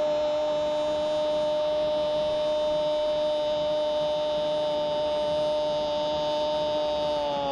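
A football commentator's long, held "goool" goal cry: one unbroken shouted note at a steady pitch, sliding down in pitch near the end.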